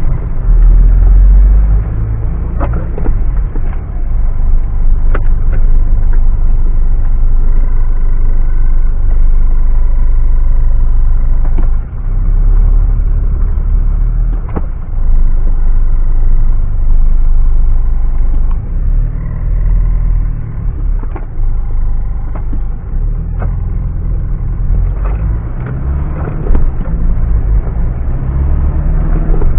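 Mitsubishi Pajero driving off-road: the vehicle's steady low rumble rising and falling with the throttle, with scattered sharp knocks and clunks.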